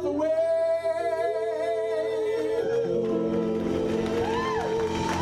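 Male doo-wop vocal group singing long held notes in harmony, live with band accompaniment.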